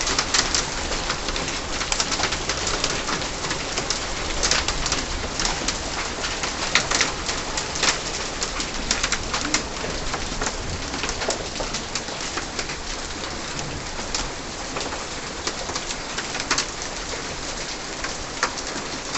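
Heavy rain falling: a steady hiss with frequent sharp drop impacts spattering on a hard surface.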